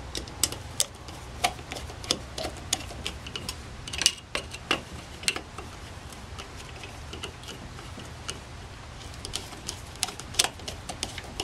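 Irregular small metallic clicks and ticks of a screwdriver turning the shouldered screw that holds the fast idle cam on a Rochester Monojet carburetor, over a faint low hum.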